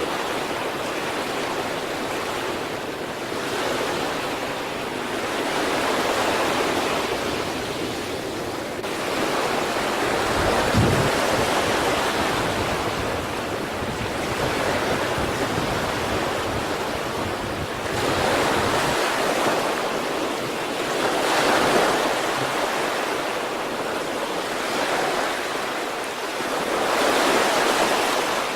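Sea waves breaking and washing on the shore, a steady rush of surf that swells every few seconds as each wave comes in. A brief low thump is heard about eleven seconds in.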